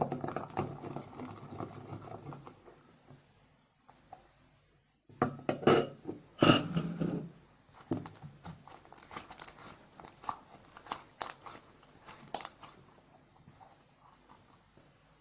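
Homemade Fevicol glue slime being worked, with wet, sticky clicks and pops coming in clusters. There is a burst of loud pops about five to seven seconds in, then scattered softer clicks.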